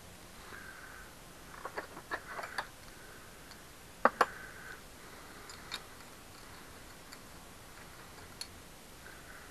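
Scattered sharp metallic clicks and taps of hand tools and bicycle pedal parts being worked, with a cluster of clicks about two seconds in and a louder double click about four seconds in.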